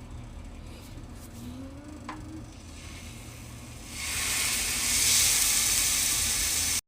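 Marinated chicken pieces sizzling loudly as they go into a frying pan of hot olive oil, the steady hiss starting about four seconds in and cutting off abruptly near the end.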